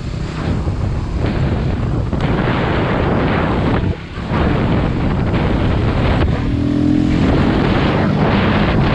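Wind buffeting the microphone on a moving motorcycle, with the motorcycle engine running steadily underneath. The sound dips briefly about four seconds in.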